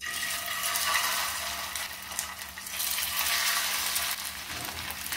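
Ring-shaped potato-and-poha vadas sizzling as they shallow-fry in hot oil in a pan. The sizzle starts suddenly as the first vada goes in and then holds steady.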